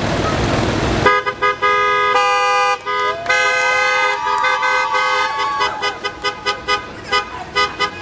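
Car horns honking in street traffic: after a second of rushing traffic noise come several long blasts, then a quick run of short toots near the end. Voices rise and fall over the horns in the middle.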